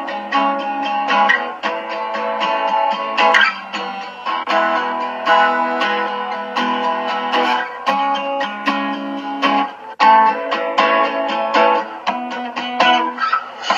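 Acoustic guitar being strummed, playing a run of chords.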